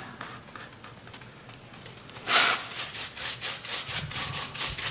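A stiff, cheap paintbrush scrubbing orange paint onto a base-coated foam pumpkin cutout. It makes a dry scratching swish with each stroke: a few faint strokes at first, a louder one a little over two seconds in, then quicker back-and-forth strokes.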